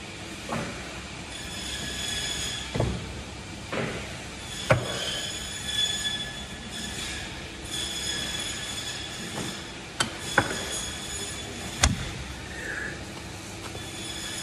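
Boning knife and lamb shoulder bones knocking against a cutting board during deboning, with about six sharp knocks. A steady high-pitched machine whine and a low hum come and go behind them.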